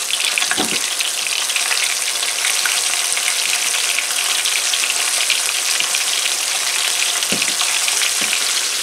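Breaded flounder fillets frying in hot vegetable oil: a steady crackling sizzle. A few soft knocks sound about a second in and twice near the end.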